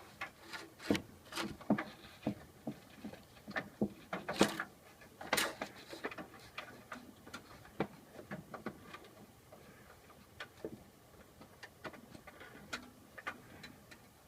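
Handling noise as cables and objects are shifted around on a desk: irregular clicks, taps and knocks, with two longer, louder rustling scrapes about four and five seconds in, thinning out to sparse ticks in the second half.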